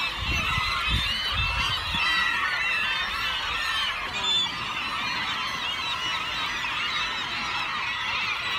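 A large flock of gulls calling all at once, a dense din of overlapping cries.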